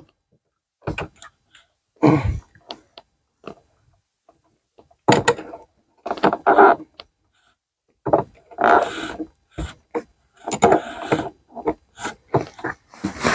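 Wrenches working a nut loose on a 12-volt battery cable terminal: intermittent metal clicks, scrapes and handling knocks, with pauses between efforts.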